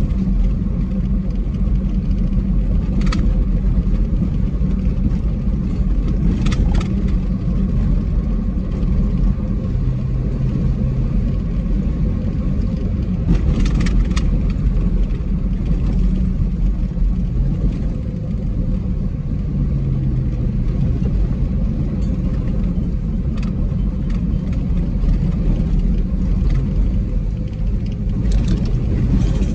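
Dodge Grand Caravan driving on a gravel road, heard from inside the cabin: a steady low rumble of engine and tyres on gravel, with a few short knocks scattered through.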